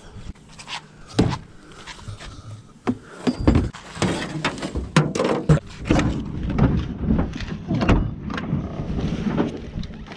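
A pickup truck's door and gear being handled: irregular knocks, thumps and clatter as bags and items are shifted about in the cab.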